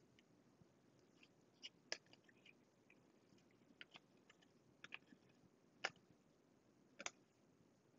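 Faint, sharp clicks and snaps of cardboard trading cards being flipped through and slid from one hand to the other, about a dozen scattered through, loudest about two, six and seven seconds in.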